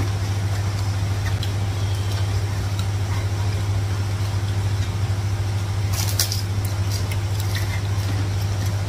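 A steady low hum from an unseen appliance or electrical source, with a few light clinks of dishes about six seconds in.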